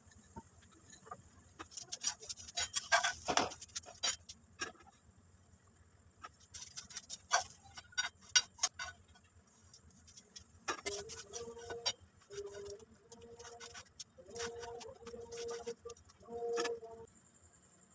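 Metal spatula scraping and clicking against an iron griddle (tawa) as a semolina flatbread is turned and pressed. In the second half the scraping turns into a series of short, steady-pitched squeaks.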